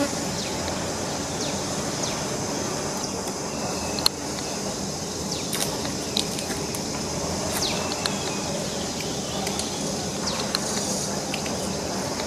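Steady outdoor background rumble with scattered short, high chirps and faint clicks, and one sharp click about four seconds in.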